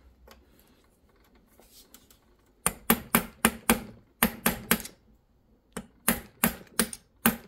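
Hammer striking a steel punch: about fourteen sharp metallic blows in quick runs of about four a second, starting nearly three seconds in. The blows are driving a worn plastic shifter bushing off the shifter's ball end.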